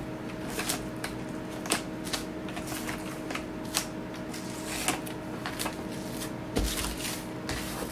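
Thin plastic cling film crinkling and crackling in irregular sharp bursts as hands fold and smooth it around a paperback book. A faint steady hum runs underneath, and there is a low thump about two-thirds of the way through.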